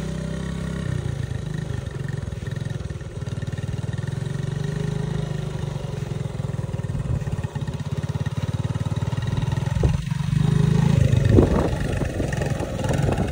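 A 1985 Honda ATC70 three-wheeler's small single-cylinder four-stroke engine running steadily at low throttle as it is ridden. Its pitch wavers slightly and it gets louder near the end.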